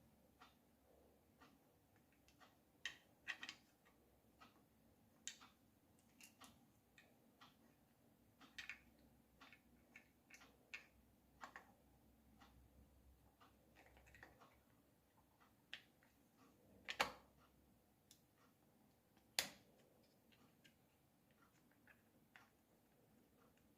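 Irregular light clicks and taps of small tool parts and hand tools being handled, with two louder knocks about two and a half seconds apart in the second half.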